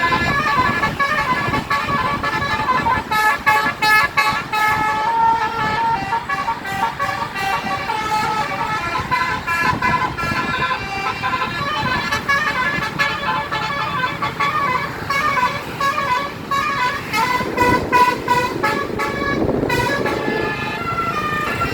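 Basuri telolet multi-tone air horn on a bus playing a tune: a quick run of short horn notes stepping up and down in pitch, repeated over and over, with road and engine noise underneath.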